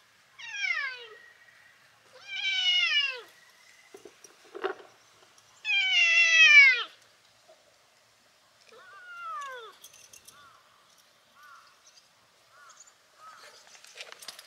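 Adult tabby cat meowing four times, each meow falling in pitch, the third the loudest, followed by a few short, soft chirps. Near the end come a few clicks and rustles as the cat comes right up close.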